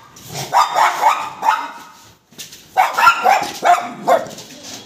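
A dog barking in two quick volleys of several barks each, with a brief pause about two seconds in.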